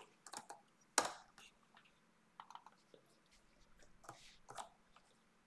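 Faint, scattered computer keyboard keystrokes and clicks, a few isolated taps with gaps between, the sharpest about a second in.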